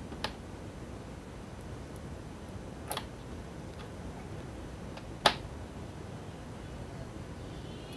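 Three sharp, separate clicks of a screwdriver and small screws against a Dell laptop's plastic and metal casing as screws are fitted; the third, about five seconds in, is the loudest. A steady low room hiss runs underneath.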